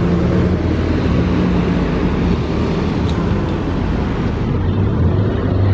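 A large bus engine running close by over road traffic noise: a steady low drone that grows stronger near the end.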